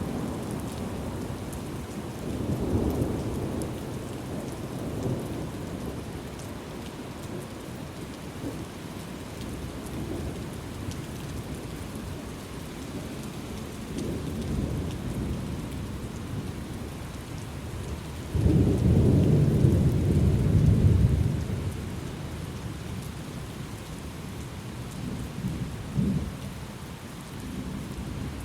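Thunderstorm: steady rain with rolling thunder rumbling several times, the loudest and longest roll about two-thirds of the way in.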